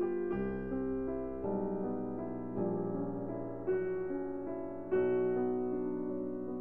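Background music: a soft piano or electric piano playing a slow melody over chords, new notes struck every second or so.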